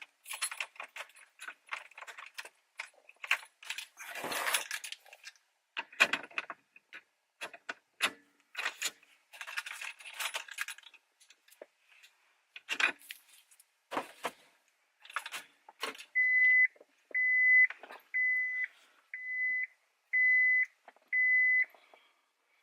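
Car keys jangling and clicking as the key is put in the ignition and turned on. Near the end a car's warning chime beeps six times, evenly spaced a little under a second apart, all on one high note.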